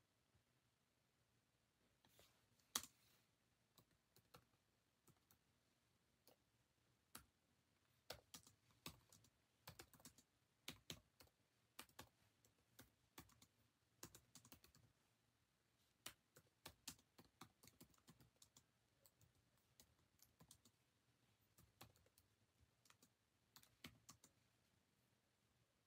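Faint, irregular clicks and taps, many in quick uneven runs, with one sharper click about three seconds in.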